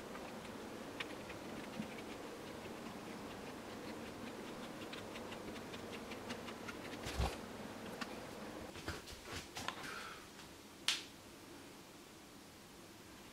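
Stainless worm-drive hose clamp being tightened around a plastic hose fitting: a quick run of light, even ticks as the screw draws the band in, then a louder knock and a few sharper clicks.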